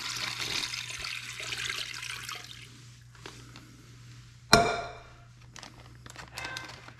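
Salt-water brine pouring from a stainless steel pot into a plastic zip-top bag of chicken breasts, the pour trailing off after about three seconds. About four and a half seconds in, the emptied pot is set down on the stone counter with a sharp ringing clank, followed by light crinkling of the plastic bag.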